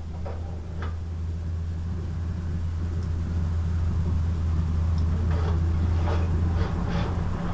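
A low steady rumble, like a running engine or motor, growing slowly louder, with a few faint knocks near the start and again in the second half.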